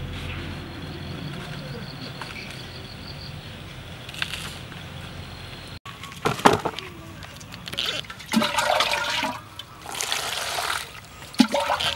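Water poured from a plastic cup over cut jackfruit pieces in a plastic basin, in several irregular splashing pours. It starts about halfway in, after a low steady background.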